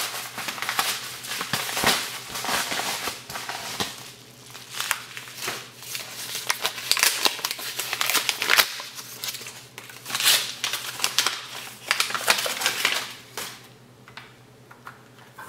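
A mail package being opened by hand: packaging crinkling, crumpling and tearing in irregular rustling bursts that thin out near the end, over a faint steady low hum.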